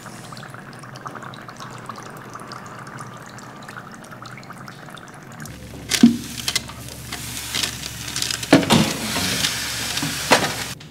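Dry ice fizzing and bubbling in a stainless steel bowl, a steady hiss with fine crackle. About five and a half seconds in, a countertop toaster oven's door is opened and the metal baking tray is pulled out over the rack, with a loud clank and then two more metal knocks and scraping.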